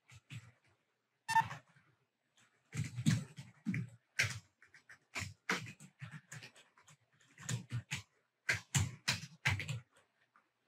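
Typing on a computer keyboard: irregular runs of key clicks and taps with short pauses between them.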